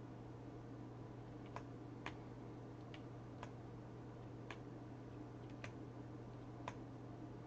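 Faint sharp clicks, about seven of them spaced irregularly half a second to a second apart, over a steady low hum.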